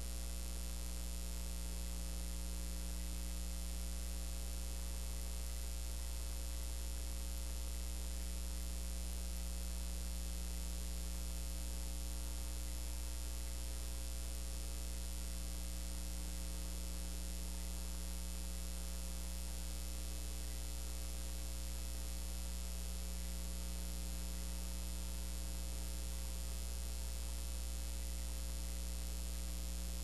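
Steady electrical mains hum with a stack of higher overtones over a faint hiss, unchanging, with no other sound.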